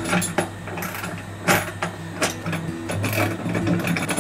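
Scattered clicks and knocks of hardware being fitted by hand under the wooden engine-box steps, over background music with a steady bass line.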